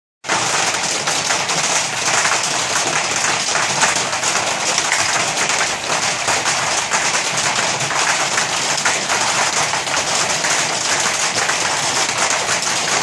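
Hail falling hard onto wet brick paving and the surroundings: a dense, steady clatter of countless small hailstone impacts over a hiss of falling ice and water.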